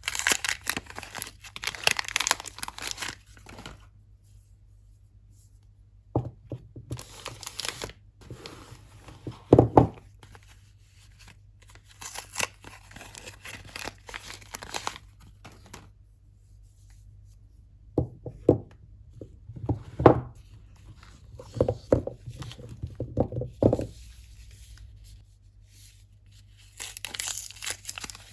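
Soap packaging being torn open and crinkled in bursts, with soft thuds and knocks as the soap is handled between them.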